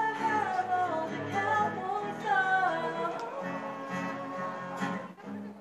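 A woman singing to her own acoustic guitar accompaniment, the guitar strummed under a wavering melody that settles into a long held note about three seconds in.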